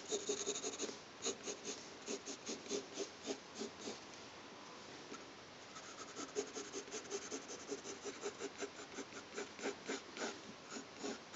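Graphite pencil scratching across paper in quick, repeated sketching strokes, about three or four a second, with a short pause around the middle.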